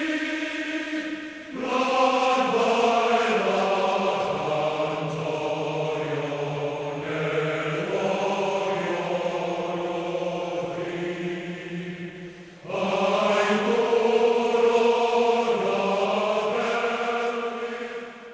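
Choir singing slow, long-held notes in sustained phrases, with fresh phrases beginning about a second and a half in and again near thirteen seconds.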